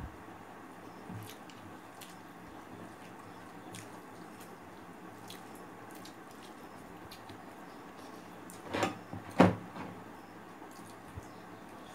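Quiet eating sounds: scattered soft mouth clicks and smacks, with two louder sounds close together about nine seconds in.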